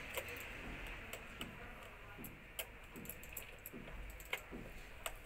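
Scattered small clicks and taps of hands and a small tool working wires and a circuit board at a photo beam sensor's terminal screws.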